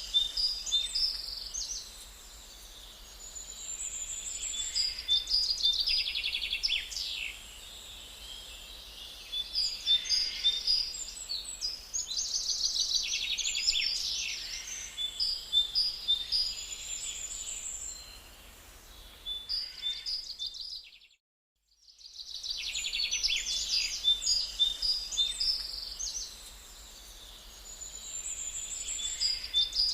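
Songbirds chirping and singing, many short calls and trills overlapping. The sound drops out to silence for about a second roughly two-thirds of the way in.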